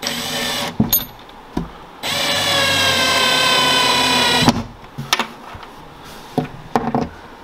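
Porter-Cable cordless drill/driver driving a wood screw through a small metal L bracket into the cabinet wall: a short burst of the motor at the start, then a steady run of about two and a half seconds. Sharp clicks and knocks of the bracket and drill being handled come between the runs and after them.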